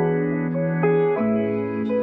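Gentle instrumental background music with held notes that change every half second or so.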